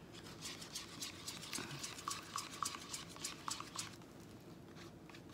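Stir stick scraping and clicking against the inside of a small cup as black acrylic paint is mixed: a quick run of strokes, about three a second, that stops about four seconds in.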